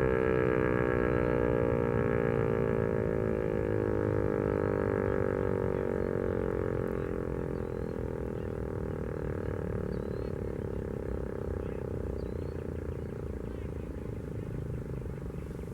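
Outdoor warning siren winding down at the end of a test, its pitch falling slowly as it fades, over a low rumble.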